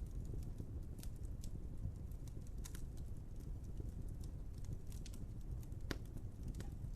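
Wood fire burning with a steady low rumble and scattered crackles and pops, one sharper pop about six seconds in.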